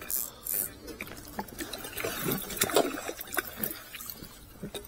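Water splashing as a carp is lowered by hand into a lake and released: a burst of splashing near the start, then smaller splashes and drips as the fish moves off at the surface.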